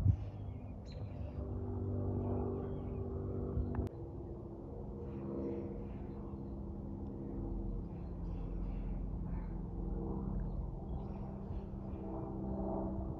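Aircraft flying overhead: a steady engine drone made of several held tones, with faint bird chirps above it. The drone changes abruptly about four seconds in.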